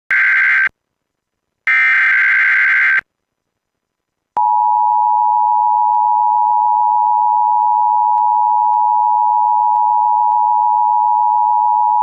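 Emergency Alert System SAME header: two bursts of warbling digital data tones, then, about four seconds in, the steady two-tone EAS attention signal (853 and 960 Hz together), held for about eight seconds. It announces a tornado warning issued over the radio station's broadcast.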